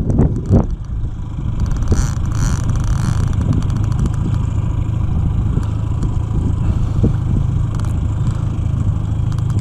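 Boat motor running steadily at trolling speed, with a brief rasping sound about two seconds in.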